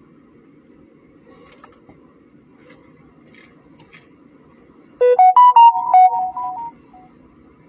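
A short electronic jingle, like a phone ringtone or notification tone: about seven quick clear notes stepping up and down, starting about five seconds in and lasting under two seconds. A low steady rumble runs underneath.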